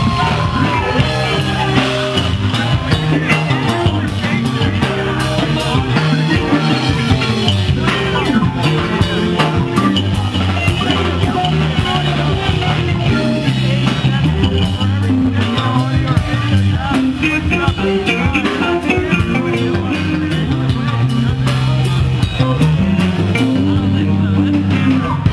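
Live band playing: guitars over a bass line moving in steps and a drum kit.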